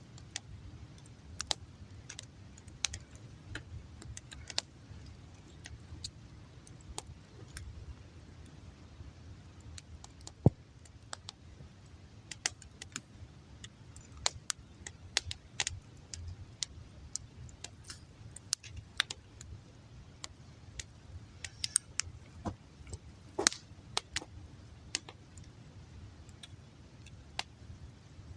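Campfire of damp firewood crackling, with irregular sharp pops of varying loudness over a low steady rumble.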